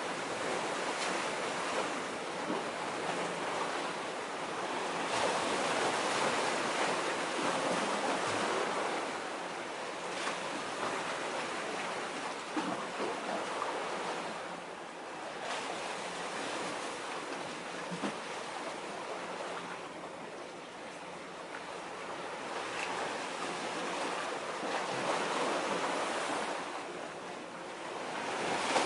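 Small waves washing against a concrete tetrapod breakwater, a steady hiss of water that swells and fades every few seconds.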